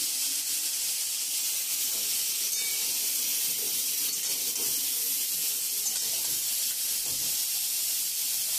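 Broccoli florets frying in mustard oil in a karai, a steady sizzle.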